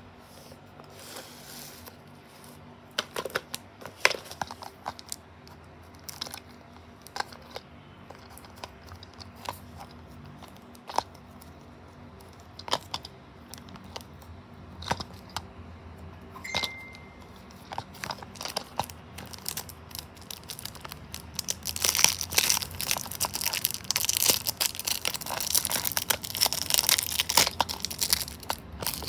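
Hands handling a small cardboard Tomica toy-car box: scattered taps and clicks, then about two-thirds of the way in, continuous crinkling and tearing as the box is opened.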